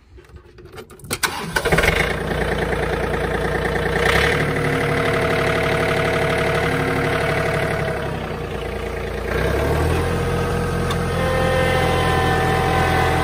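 Compact tractor engine cranked by the starter, catching after about a second and then running steadily. Its engine speed shifts near four seconds in and again near ten seconds in, where it grows a little louder.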